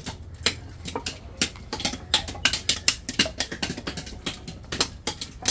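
Roasted cashew nuts being cracked open by hand, each struck with a small mallet against a block: sharp, irregular taps, several a second.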